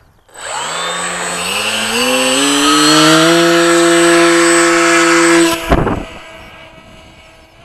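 Electric motor and propeller of a Mini Talon RC plane spinning up with a rising whine, then holding a steady high-throttle whine for launch. About five and a half seconds in it cuts off sharply with a brief rush of air, then carries on faint and distant as the plane flies away.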